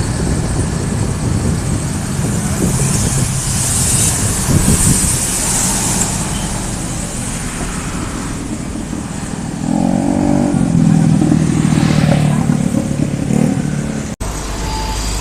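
Road traffic passing on a busy street, with car and motorbike engines and tyre noise. A heavier vehicle's engine passes loudest from about ten seconds in.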